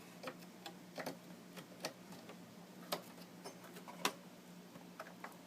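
Light scattered clicks and taps, about four of them standing out, from a memory module being handled and pressed into the motherboard RAM slot of a Dell OptiPlex 760 desktop. A faint steady hum lies under them.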